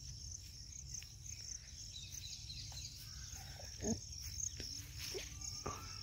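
Insects chirping in a steady, high-pitched, rapidly pulsing trill, over a low rumble. A brief faint voice-like sound comes about four seconds in.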